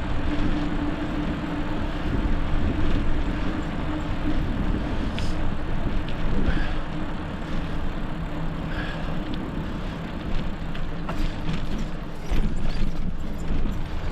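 Continuous wind and road noise from riding a bicycle, with a low steady hum through the first half and a few light clicks near the end.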